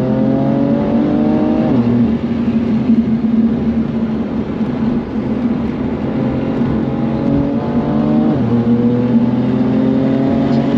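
BMW F80 M3's twin-turbo straight-six heard from inside the car under hard acceleration on track. The revs climb, broken by two sharp drops about two seconds in and about eight seconds in, then climb again.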